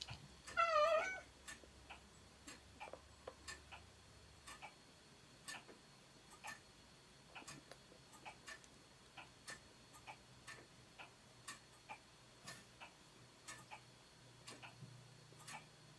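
A cat gives one short meow, rising and falling in pitch, about half a second in. After it a clock ticks faintly and regularly in a quiet room.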